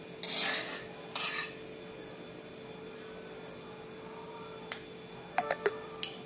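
A spatula scrapes and stirs twice in a metal kadhai of hot oil and frying whole spices. About five seconds in come a few sharp metal clinks of utensils.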